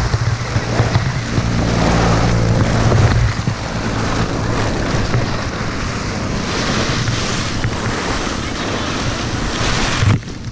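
A rushing rustle of many plastic ball-pit balls shifting and rubbing against one another and against the camera as it is pushed in among them. Wind rumbles on the microphone for the first three seconds.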